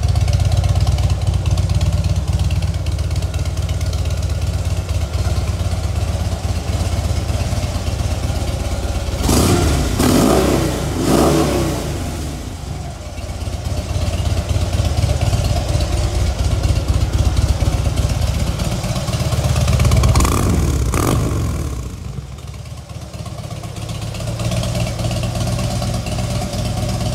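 Harley-Davidson Fat Bob's 1584 cc V-twin idling through Screaming Eagle exhausts, blipped up in revs briefly about ten seconds in and again about twenty seconds in.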